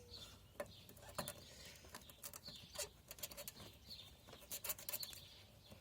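Faint bird chirps, a short falling note repeating about once a second, with scattered light clicks and knocks from a trailer wiring plug being handled and connected.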